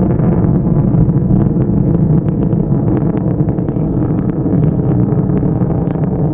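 Delta IV rocket climbing under its main engine and four solid rocket boosters, heard from a few miles off: a loud, steady low rumble shot through with sharp crackling.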